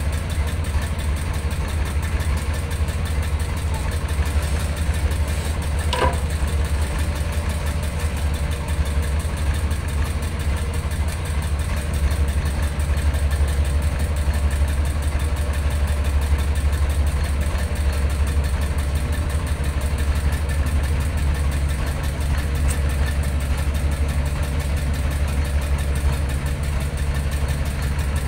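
A boat's engine idling steadily.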